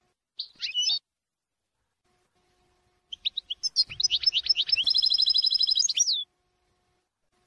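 European goldfinch singing a song of the Levantine ('Shami') type. A short twittering phrase comes first; after a pause of about two seconds a longer phrase of quick high notes builds into a fast, even trill and breaks off.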